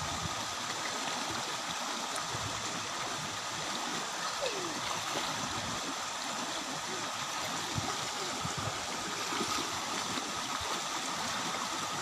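Shallow rocky stream rushing steadily over stones in a waterfall cascade.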